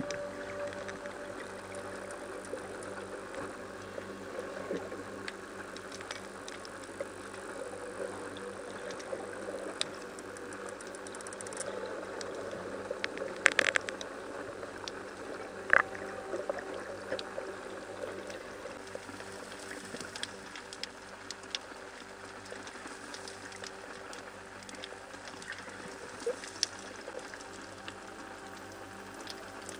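Underwater ambience: a steady hiss with a faint low hum and scattered small clicks and crackles, and two louder sharp knocks about 13 and 16 seconds in.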